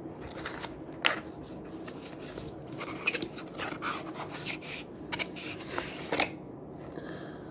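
A paperboard gift box being worked open by hand: cardboard rubbing and scraping, with scattered short scratches and clicks, as its inner drawer is slid out.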